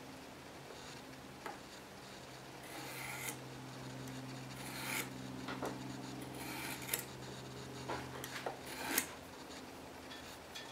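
A marking tool drawn along a steel rule, scratching into the wood in four or five short strokes, with a few small ticks of the tool and rule. A faint steady hum underneath.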